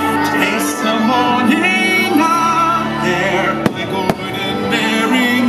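Show music with singing, plus two sharp firework bangs close together about two-thirds of the way through.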